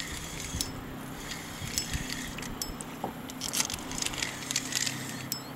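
Fishing reel being cranked against a hooked smallmouth bass: scattered faint clicks and ticks over a low, steady background of wind and lapping water.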